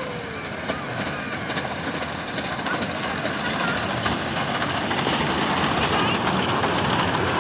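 Miniature park joy train running along its narrow-gauge track, its running noise growing steadily louder as it comes closer. A thin, steady high whine sits over it.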